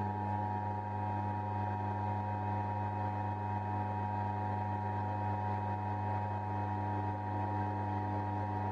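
Electric motor of a homemade lathe running steadily: a constant low hum with a steady higher whine over it.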